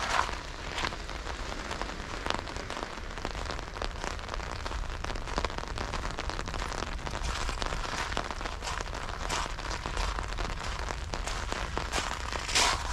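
Steady rain falling on hard surfaces: an even hiss thick with small drop ticks, with a few louder taps, one at the start, one about two seconds in and one near the end.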